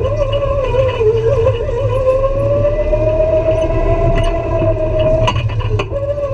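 Go-kart running at speed, heard from the driver's seat: a high engine whine over a steady low rumble. The whine sags and wavers about a second in, climbs back, then drops out briefly near the end with a couple of sharp knocks before picking up again at a lower pitch.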